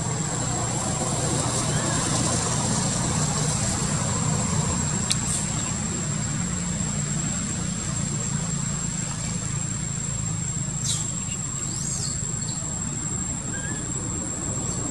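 Forest ambience: a steady low hum under a continuous thin high-pitched tone, with a sharp click about five seconds in and a few short high chirps around eleven and twelve seconds in.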